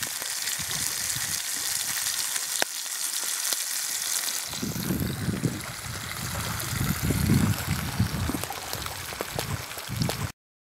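Walleye fillets sizzling as they fry in a pan over a campfire: a steady hiss with a single click a little over two seconds in. About four and a half seconds in, the sizzle gives way to wind and water at a lake shore, with low gusty rumbles, and the sound cuts off suddenly near the end.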